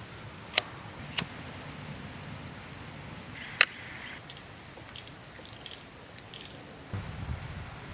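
A steady, high-pitched insect trill, with three sharp clicks or snaps on top: about half a second in, a second in, and the loudest about three and a half seconds in.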